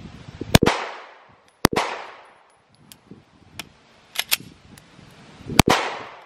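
Three handgun shots. The first two come about a second apart near the start. After a gap of nearly four seconds the third comes near the end. In the gap there are quieter sharp clacks as the pistol is tapped and racked to clear a dummy round.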